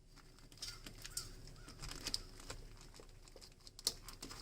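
Faint clicks and rustling of hands handling cables and tools in the engine bay, with a few short, faint bird calls in the background during the first half.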